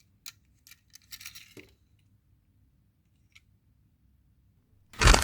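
A few small clicks and light clinks of the die-cast metal-and-plastic toy trucks being handled, with a faint tick later. Right at the end a sudden loud rustle breaks in.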